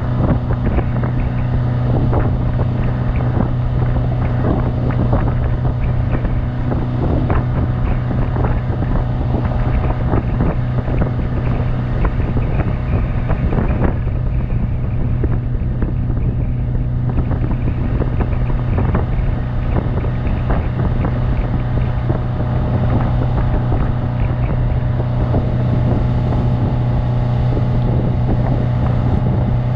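Yamaha 150 hp outboard running steadily at cruising speed, about 24 mph, while towing a tube, with a constant low drone. Wind buffets the microphone over the engine.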